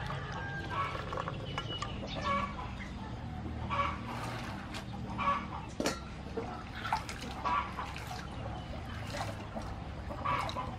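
Chickens clucking repeatedly, with soft wet rubbing and splashing of soaked black-eyed peas being washed by hand in a steel bowl of water. A sharp click about halfway through, over a steady low hum.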